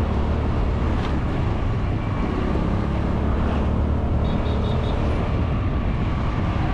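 Motorcycle riding at road speed: a steady engine drone mixed with wind rushing over the microphone. A few faint short beeps come a little past four seconds in.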